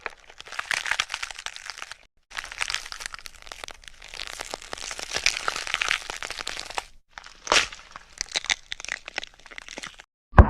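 Crunching, crackling eating sound effect standing for an elephant seal eating crab and fish: dense runs of cracks and crunches, broken by short gaps about two and seven seconds in, with one sharper crack soon after the second gap.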